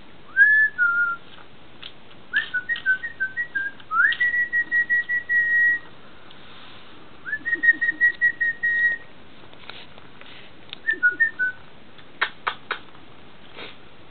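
A person whistling: a note that rises and drops back, then short warbling phrases and long held notes broken into quick pulses. A few sharp clicks come near the end.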